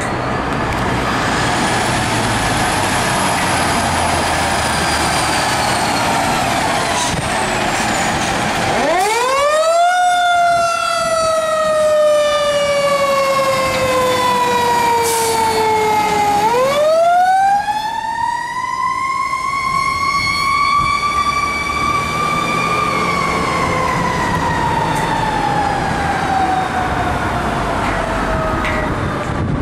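Fire engine siren responding on a call. After some engine and road noise, the siren shoots up steeply about nine seconds in and slowly winds down. It winds up again a few seconds later and falls away slowly toward the end.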